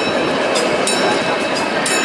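Narrow-gauge train running along the track with a steady, loud rolling noise, broken by a sharp click about once a second.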